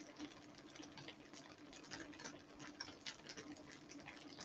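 Faint, irregular crackling and spitting of tofu slabs frying in oil in a pan as they crisp up, with a faint steady hum underneath.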